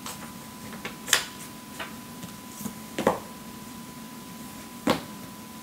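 Manga paperback volumes being handled and set down on a stack: a few sharp taps and knocks, about a second, three seconds and five seconds in, with smaller ticks between. A faint steady high tone runs underneath.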